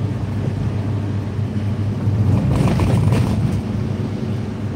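Steady low engine and road hum of a car, heard from inside the cabin while driving, growing a little louder about halfway through.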